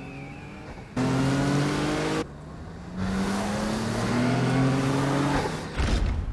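Off-road race truck engine revving hard at speed in two runs: one about a second in, and a longer one from about three seconds, its pitch climbing through each. A low thump comes near the end.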